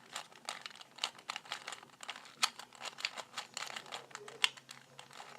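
2x2 Rubik's cube being turned fast by hand: a quick, irregular run of plastic clicks and clacks as the layers snap round, with louder clacks about two and a half seconds and four and a half seconds in.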